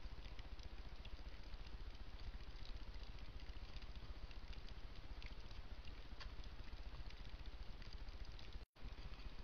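Steady hiss and low rumble from a trail camera's built-in microphone, with a few faint ticks. The sound drops out completely for an instant near the end.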